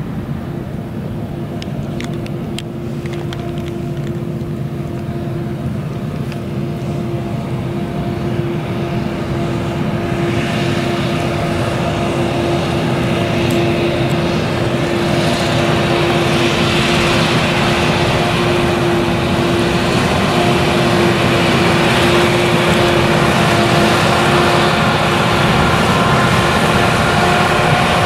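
Claas Jaguar 970 forage harvester with its MAN V8 diesel running under load while chopping sorghum, a steady whine over the engine, growing gradually louder as the machine draws near.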